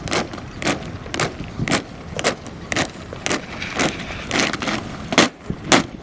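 Massed army boots striking the parade ground in step, about two footfalls a second. The last two stamps, near the end, are the loudest as the contingent halts.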